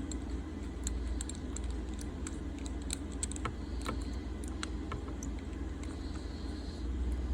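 Small clamps being fitted onto the edges of a phone to hold a freshly glued back glass: irregular light clicks and taps, over a steady low hum.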